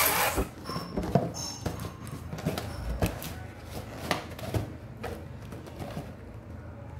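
Inflated latex balloon being handled while its neck is knotted: latex rubbing and squeaking against fingers, with scattered small taps and clicks. A short rush of noise comes right at the start.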